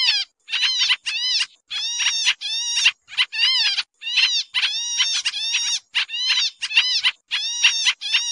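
Pied triller (kapasan kemiri) calling nonstop in a busy lure recording: a rapid run of short, nasal, down-slurred notes, about three a second.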